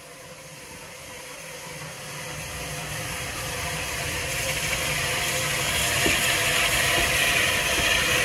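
Steam locomotive approaching, growing steadily louder, with a rising hiss and no distinct exhaust beats.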